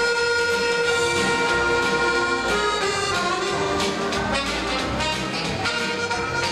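Live dance-band music: long held melody notes over a steady beat.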